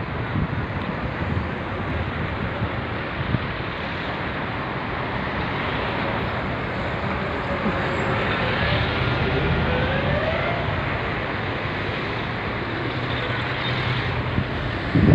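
Steady street traffic noise: car engines running and passing, with a low engine hum that comes through more plainly in the second half.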